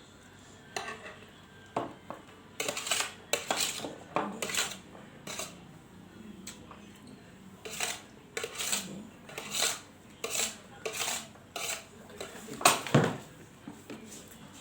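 Eating utensils clinking and scraping against a plate of instant fried noodles, in a long run of short strokes with the loudest knock near the end.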